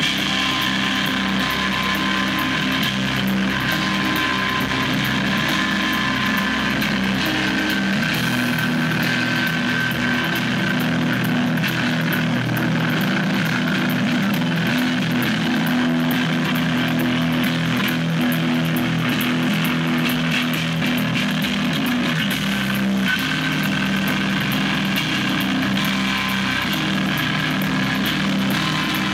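Live rock band playing loud, with heavily distorted electric guitar from a Fender Jazzmaster over drums and cymbals. The deepest bass drops away for a stretch in the middle and returns.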